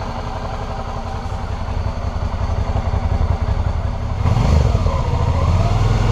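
Suzuki V-Strom 650's V-twin engine running through its stock exhaust. It settles to a lower, steady run, then is revved about four seconds in, the pitch falling and rising again as the throttle is worked.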